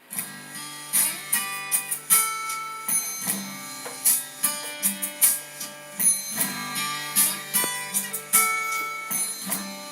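Instrumental music: a guitar picking out notes that ring on, about one or two new notes a second, with no voice.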